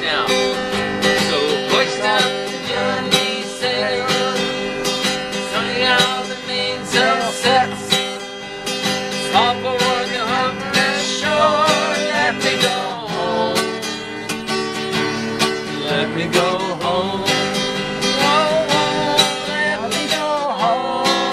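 Acoustic guitar strummed steadily while a voice sings along, a country-style song.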